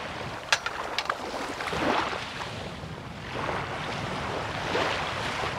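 Small waves lapping on the beach, swelling and easing twice, with a few light clicks between about half a second and a second in.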